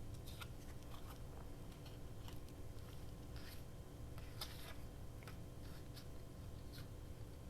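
Faint rustling and soft taps of paper pieces being handled and laid down on a journal page, as a series of short scattered sounds.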